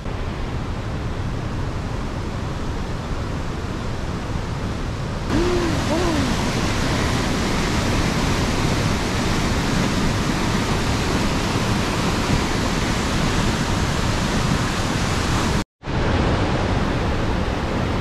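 River rapids: water rushing in white cascades through a rocky channel, a steady rush that becomes louder about five seconds in. It cuts out for a moment near the end.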